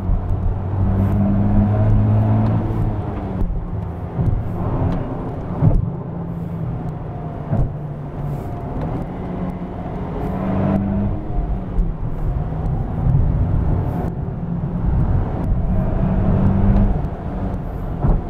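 Nissan Fairlady Z's 3.0-litre twin-turbo V6 heard from inside the cabin while the car is driven hard. The engine note swells and eases several times over steady road noise, with a few short thumps.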